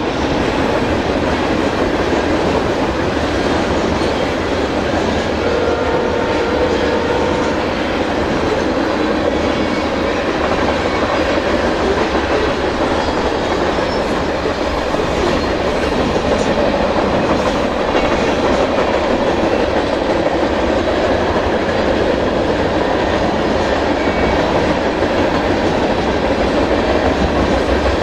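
Freight train cars (covered hoppers, then boxcars) rolling past: a steady rumble and clatter of steel wheels on the rails.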